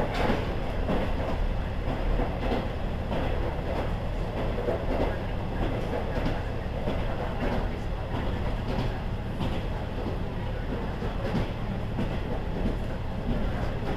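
KiHa 40 series diesel railcar under way: a steady running rumble with the wheels clicking over rail joints every second or so.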